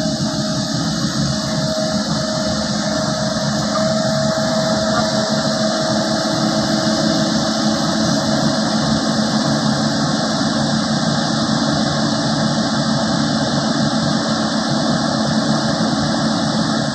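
Long-arm excavator's diesel engine running steadily, with a faint steady whine that fades out about halfway through.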